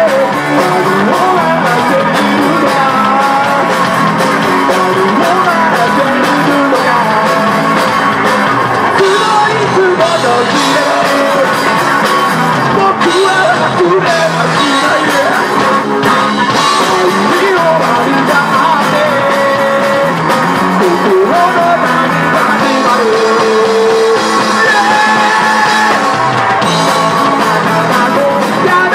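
Live rock band playing: a male singer over electric guitars and drums, loud and without a break.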